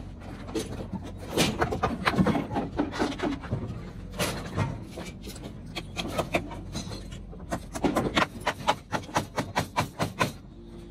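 Hammering and clatter of timber formwork boards: irregular sharp knocks of wood and metal, then a quick even run of hammer blows, about four a second, from about eight seconds in.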